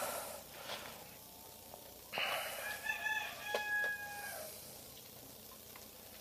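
A rooster crowing in the distance: one call of about two seconds, starting about two seconds in, with a few faint clicks around it.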